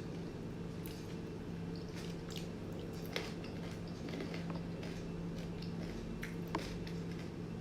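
Close-up eating sounds of a person eating rice and kidney beans by hand: soft wet chewing with scattered mouth clicks and squishes. A steady low hum runs underneath.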